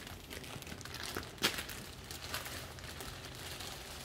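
Clear plastic wrapping crinkling and rustling as gloved hands unfold and shake it out, with one sharper crackle about a second and a half in.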